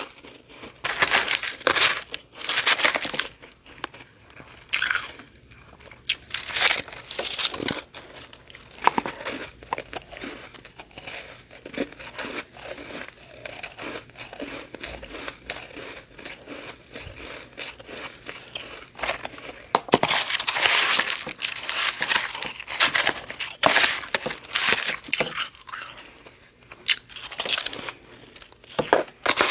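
Freezer frost crunching close to the microphone as it is bitten and chewed, in irregular loud bursts with fine crackling clicks between them.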